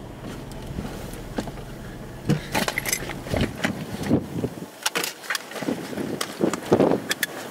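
Gusty storm wind buffeting the microphone, with irregular sharp taps and gusts from about two seconds in. A low steady hum underneath drops out about halfway through.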